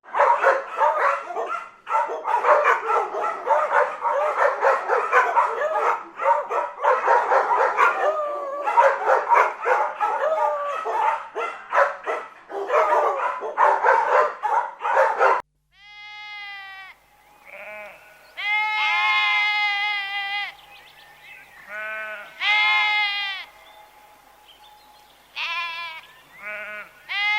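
Bleating livestock. A dense chorus of many overlapping bleats runs for about the first half, then breaks off abruptly. After that come single wavering bleats, one after another with short gaps between them.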